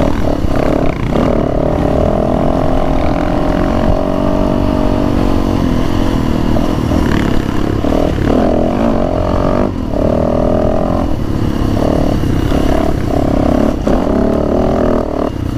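Dirt bike engine being ridden hard on a rough dirt trail, revving up and easing off again and again, with short throttle-off dips around a second in and again near the middle.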